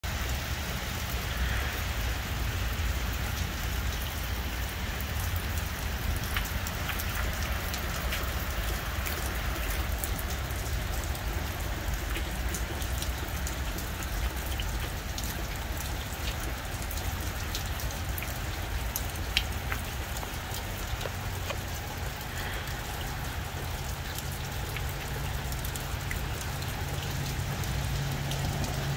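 Steady rain, with many individual drops tapping close by.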